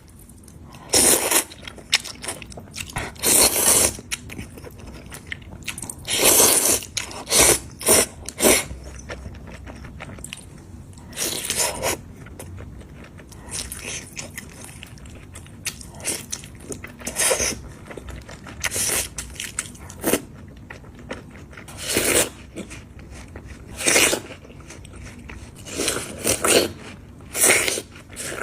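Close-up eating sounds of sticky noodles in soybean paste: loud, wet chewing and mouth noises that come in irregular bursts every second or two.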